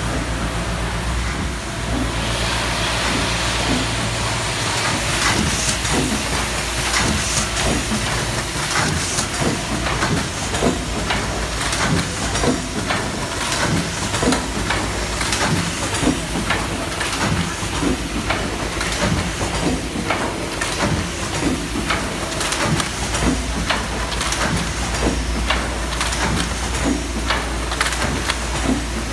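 Valve-on-bag sealing machine and its vibratory bowl feeders running: a steady low hum with hissing, and a constant rattle of clicks and knocks from the mechanism.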